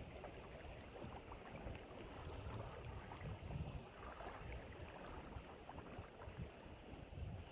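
Wind buffeting the microphone in uneven gusts, a low rumble that swells and eases, with faint crackling over it.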